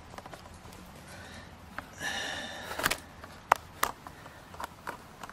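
Small metal parts handled at a work surface: scattered light clicks and taps as a T-nut and screw are picked up and fitted, with a brief squeak about two seconds in.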